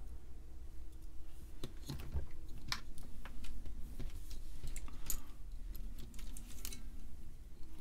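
Scattered light clicks and taps of hands handling a bare circuit board: resistor leads being pushed through its holes and the board set down on the workbench.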